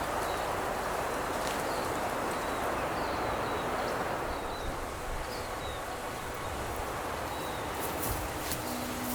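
Wind rushing through pine trees, strongest at first and easing off, with faint small-bird chirps in the middle and a few light clicks near the end.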